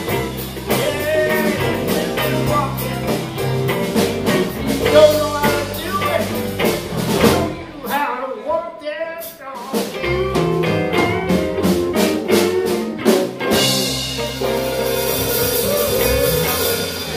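Live blues band playing: electric guitars, electric bass and drum kit. About eight seconds in, the bass and drums stop for about two seconds, leaving a bending guitar line alone, then the full band comes back in with cymbals washing over the last few seconds.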